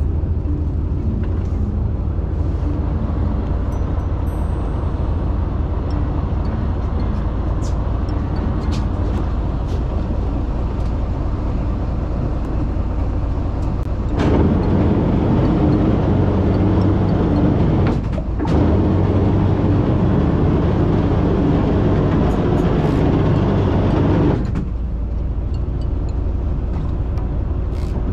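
Fishing boat's engine running steadily with a low hum, mixed with wind and water noise. It grows louder for about ten seconds in the middle, then drops back.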